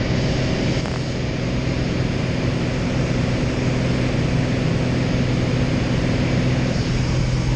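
Piston engine and propeller of a strut-braced high-wing light aircraft droning steadily in flight, heard from inside the cabin with wind noise over it.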